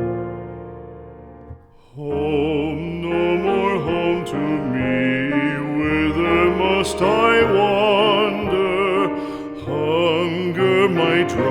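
Background music: a piano chord fading away, then from about two seconds in a classically trained voice singing with vibrato over piano accompaniment.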